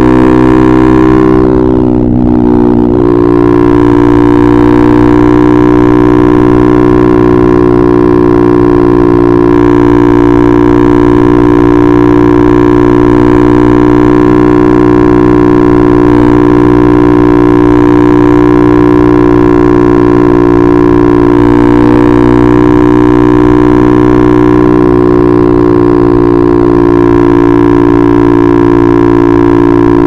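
KTM RC 390's single-cylinder engine through an Akrapovic exhaust, running at a steady cruising speed. Its pitch dips briefly about two seconds in, then holds steady again.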